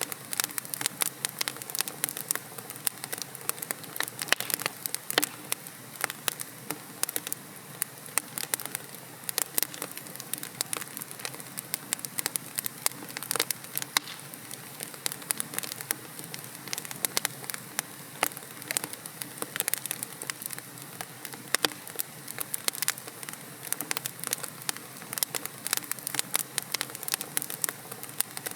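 Wood logs burning in a fireplace: dense, irregular crackling and popping over a steady hiss.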